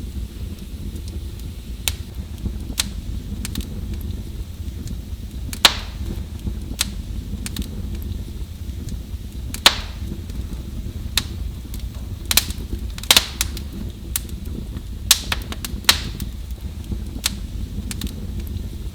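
Wood fire in a fireplace crackling: sharp pops and snaps at irregular intervals over a steady low rumble, the loudest pops about six and ten seconds in.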